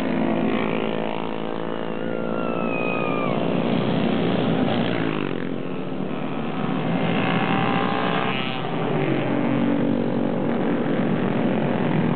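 Many motorcycle engines running together as a stream of bikes rides past, their overlapping engine notes rising and falling. A short falling high tone sounds about two seconds in.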